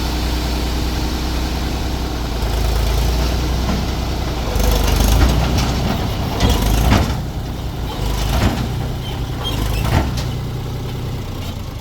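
Heavy diesel machinery engine running steadily. In the second half come several sharp knocks and clanks of metal and soil handling.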